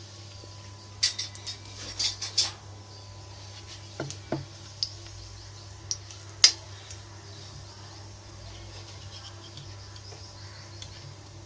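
A spatula scraping and clinking against an iron kadhai while stirring whole spices in ghee, in irregular clusters with the sharpest knock about six and a half seconds in. A steady low hum runs underneath.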